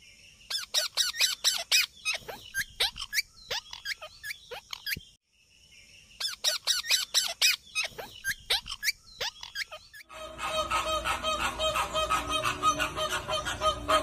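Rose-ringed (Indian ringneck) parakeets giving rapid, shrill screeching calls in two runs with a short break in the middle. About ten seconds in, a flock of flamingos takes over with a dense, continuous honking chatter.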